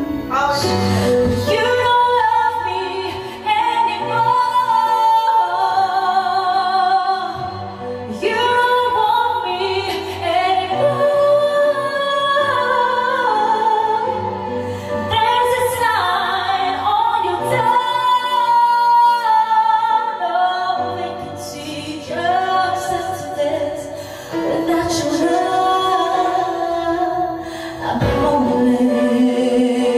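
A woman singing into a karaoke microphone over a karaoke backing track, her held notes carrying a wide vibrato, in long phrases with short breaks between them.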